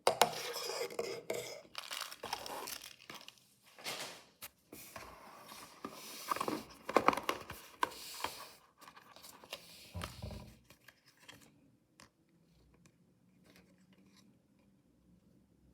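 Mystery toy packaging being torn open and handled, with tearing, crinkling and scraping. It dies down after about eleven seconds to a few faint small clicks and taps.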